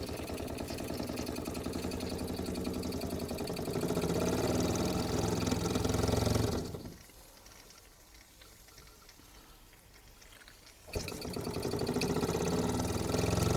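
Mamod TE1A toy steam traction engine's small piston engine running fast under steam, a rapid, even mechanical chuffing clatter. It gets louder about four seconds in, drops away to faint for about four seconds in the middle, then comes back abruptly after a click.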